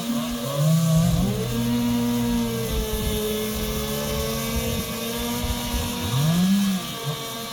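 Two-stroke chainsaw engine revving up and settling back, its pitch climbing sharply about half a second in and again near the end, over a steadier engine note.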